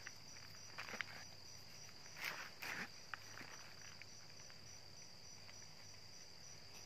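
Hands rubbing and crumbling loose cocopeat (coconut coir) in a plastic basin, with soft rustling scrapes about a second in and again around two and a half seconds in. A steady high-pitched pulsing tone runs underneath.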